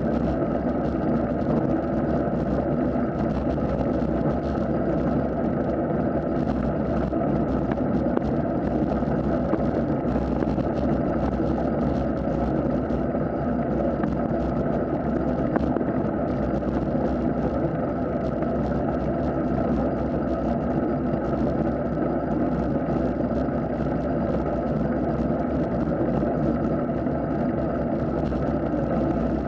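Steady rolling noise of a bicycle riding along wet asphalt, its tyres hissing on the damp road.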